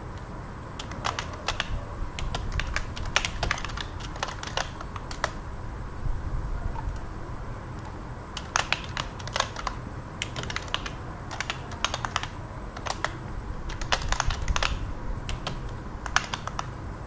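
Typing on a computer keyboard: irregular runs of keystrokes, with a pause of about three seconds in the middle, over a steady low hum.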